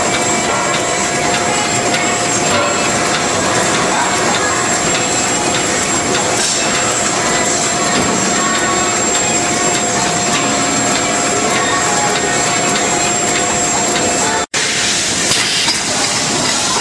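JANDI'S GF-R812E/SVA bag-on-roll making machine running: dense, steady mechanical clatter from its rollers and feed, with a steady whine through it. The sound cuts out for an instant near the end, then carries on much the same.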